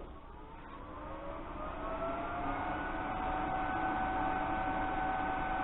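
A machine's motor starting up: its whine rises in pitch over the first two and a half seconds, then holds steady.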